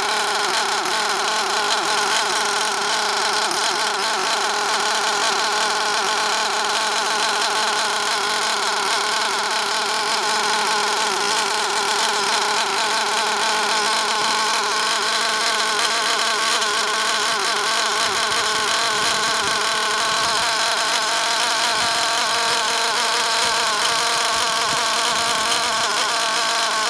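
Small two-stroke nitro R/C engine running steadily at full throttle on a very rich break-in mixture, a high-pitched buzz that holds the same pitch.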